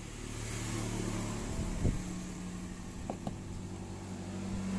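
A steady low engine hum that swells over the first second and then holds, with a few light knocks and clicks.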